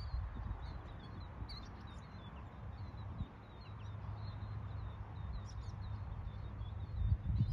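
Small birds chirping repeatedly with short, high calls over open water, above a steady low rumble, with a louder low bump near the end.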